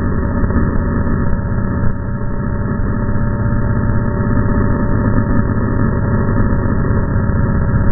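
Model airplane's motor and rushing air picked up on board, slowed down to a low, steady drone.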